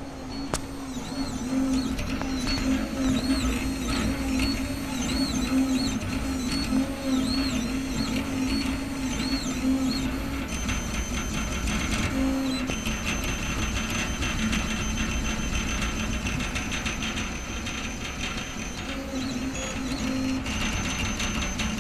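Solidoodle 3D printer's stepper motors running as the print head moves, their pitch rising and falling in short repeated sweeps. About ten seconds in, the pattern changes to a steady high whine over fast, even ticking.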